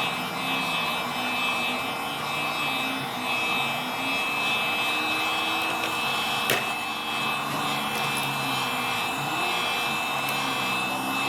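Wagner heat gun running steadily, its fan blowing hot air with a faint high whine while it heats the phone's screen adhesive. There is a single sharp click about halfway through.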